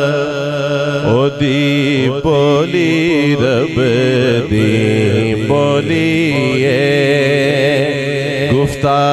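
Man singing a Punjabi naat into a microphone, holding long notes with ornamented glides and turns, over a steady low drone.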